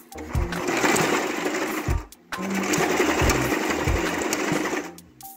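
Small domestic sewing machine stitching an elastic strap onto the edge of a cloth face mask, running in two spells of about two seconds each with a short stop just after the middle.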